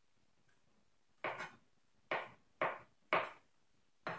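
Chef's knife slicing through mushrooms and striking the cutting board, five separate cuts at uneven intervals starting about a second in.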